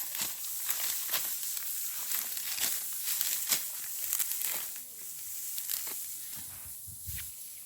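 Dry wheat stalks rustling and crackling in quick repeated strokes, about two a second, easing off after about five seconds.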